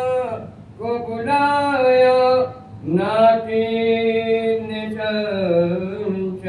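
An elderly man's unaccompanied voice chanting a soz, a mournful elegy. He sings three drawn-out phrases on long held notes, with short breaths between them and a wavering fall in pitch late in the last phrase.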